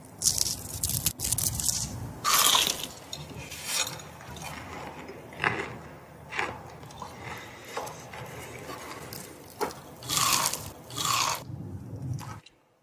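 Crisp crunching as a coconut-coated fried piece is bitten and chewed close to the microphone. The loudest crunches come in the first few seconds and again about ten seconds in, with lighter chewing crunches between.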